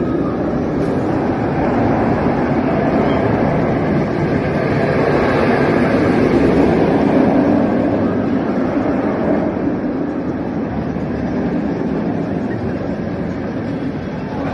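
Steel inverted roller coaster train running along the track overhead: a steady rumbling roar that builds to its loudest about halfway through and slowly eases off.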